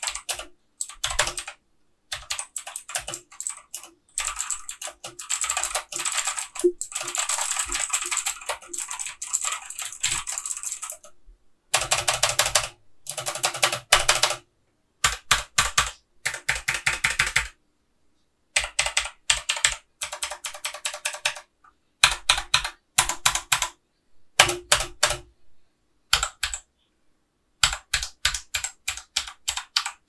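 Fast typing on a Redgear Shadow Blade (MK853) mechanical keyboard: rapid key clicks and clacks, one unbroken run for about the first eleven seconds, then short bursts of keystrokes with brief pauses between them.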